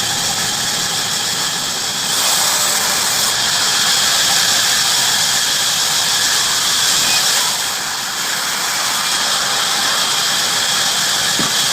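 Band saw running with its blade cutting through wood, a steady high hiss and whine. It grows louder about two seconds in and eases briefly near eight seconds.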